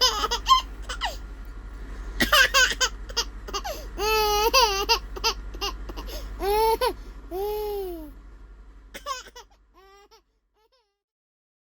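A baby laughing and squealing in a run of high, wavering bursts that fade out about ten seconds in.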